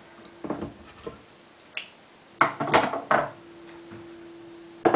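Metallic clinks and knocks as a bar clamp is loosened and a slotted steel channel straight edge is lifted off a laminate countertop, with a quick run of clattering strikes about two and a half seconds in. A faint steady tone lingers from just past the middle.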